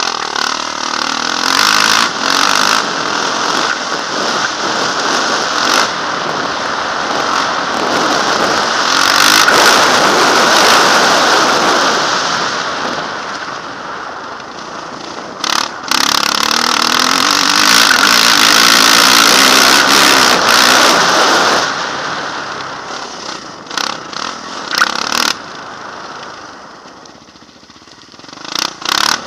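Yamaha motocross bike's engine revving and pulling through the gears under hard riding, its pitch rising and falling with the throttle. It is loudest around the tenth and twentieth seconds and eases off between and near the end.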